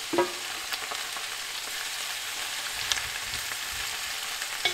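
Vegetables sizzling in hot oil in a pot, a steady frying hiss, as squash pieces are scraped in from a metal bowl with a wooden spatula and stirred. A light ringing knock sounds just after the start, with softer clicks about three seconds in and near the end.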